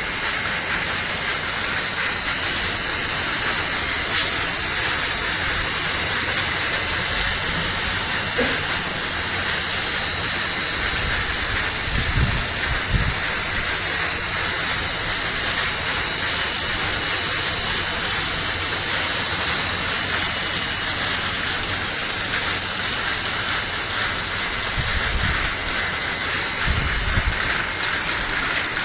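External vial washing machine for 50 ml vials running, with a loud, steady hiss of its spray jets. A few low thumps come about twelve seconds in and again near the end.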